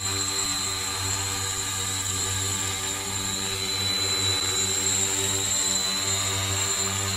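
Multirotor drone hovering: a steady propeller buzz with a low hum, and a thin high-pitched whine held over it.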